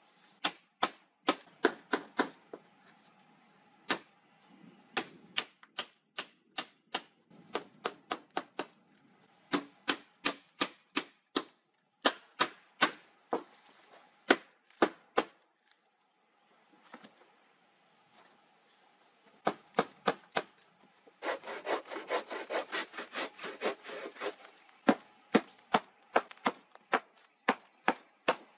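Hammer striking weathered wooden planks in short runs of sharp blows, with a long fast run of lighter strikes a little past the middle.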